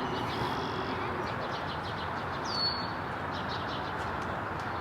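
Birds chirping over steady outdoor background noise: rapid short chirps, with one clearer call about two and a half seconds in that drops in pitch and then holds.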